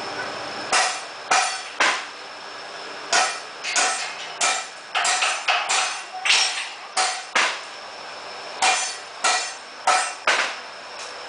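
Hammer striking iron in a metalworking shop: a run of sharp, ringing metal blows at about two a second, with a brief pause about two-thirds of the way through.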